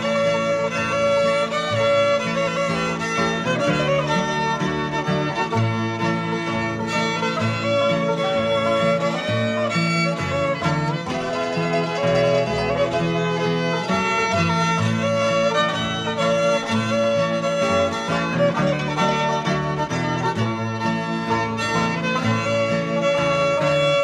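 Bluegrass band playing, with fiddle leading over guitar, banjo and upright bass, at a steady tempo.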